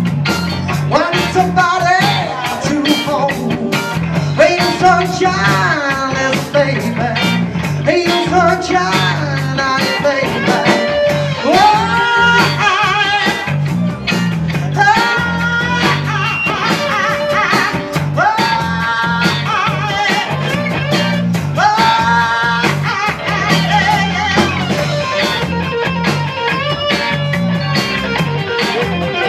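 Live rock band playing: electric guitars, bass guitar and drums, with a voice singing over them in repeated phrases.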